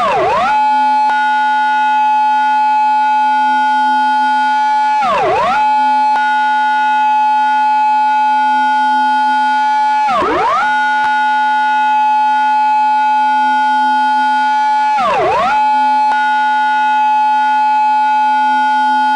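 Recreated Japanese police car siren in its intersection-entry pattern: a steady, buzzy wail held for about five seconds at a time, broken by a quick swoop down in pitch and straight back up, four times.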